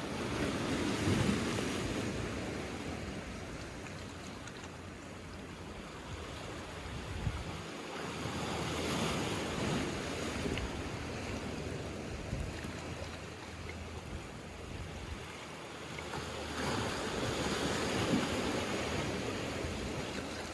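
Small waves breaking and washing over rocks and a pebble shore. The surf swells and fades three times, about every eight seconds.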